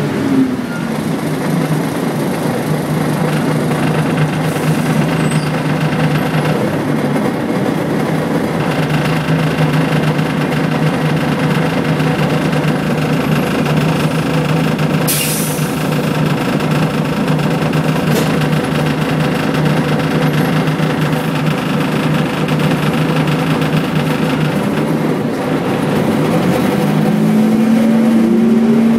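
Volvo B10BLE bus's rear-mounted six-cylinder diesel engine heard from inside the saloon, running steadily as the bus drives. A short sharp hiss comes about halfway through, and the engine note rises near the end.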